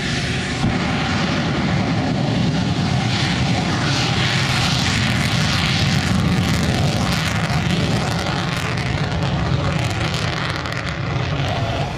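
Jet engine running at full power with the afterburner lit, a loud steady roar that swells in the middle and eases slightly near the end.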